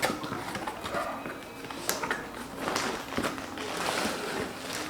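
Packaging handled by hand while a tripod is unboxed: scattered rustles and light knocks, with one sharp click about two seconds in.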